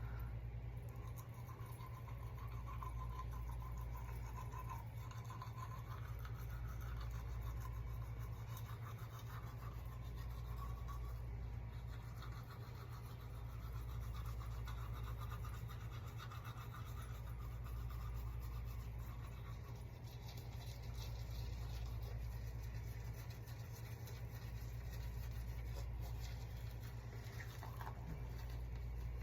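Hair being braided: soft scratchy rubbing and rustling of strands against each other, swelling and fading every few seconds, over a steady low hum.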